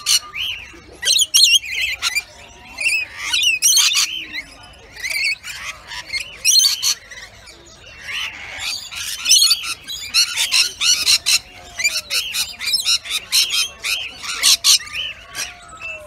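A flock of rainbow lorikeets calling: a dense run of short, high calls with no let-up, bunching thicker several times.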